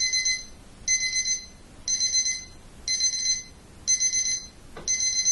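Electronic alarm clock beeping: short runs of rapid high-pitched beeps, repeated about once a second.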